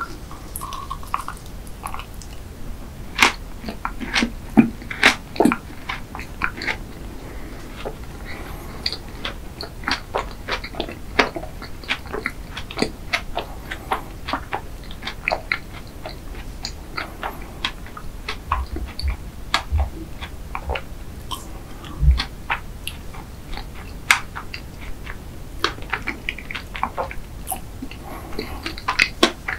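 Close-miked chewing of a macaron, mouth closed, with many small wet clicks and crunchy crackles, busiest a few seconds in.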